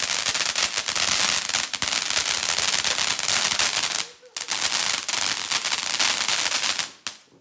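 Fireworks going off in a dense, rapid run of crackling pops, breaking off briefly about four seconds in, then resuming and stopping near the end.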